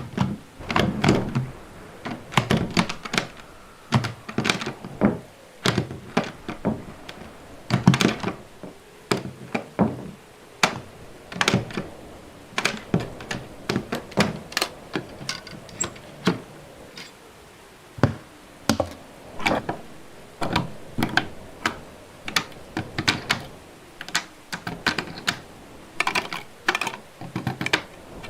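Door sound effects: a long series of sharp clicks, knocks and thunks from door hardware, irregularly spaced and often several a second, some in quick clusters.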